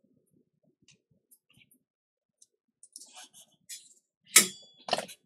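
Small metal tools being handled on a soldering bench: faint scattered ticks and rustles, then two sharp clicks with a brief metallic ring near the end.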